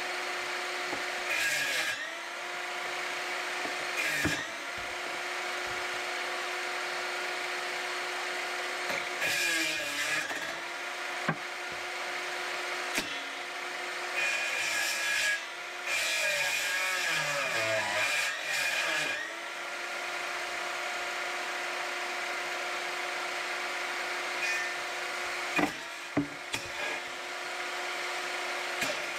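Einhell TE-TS 36/210 cordless table saw running steadily and cutting wood several times. With each cut the motor's pitch sags under load and the blade hisses through the wood, then the motor picks back up between cuts.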